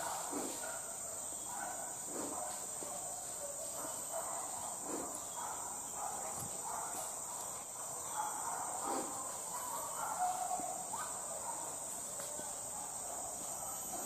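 Insect chorus droning steadily at a high pitch, with faint irregular lower sounds scattered underneath.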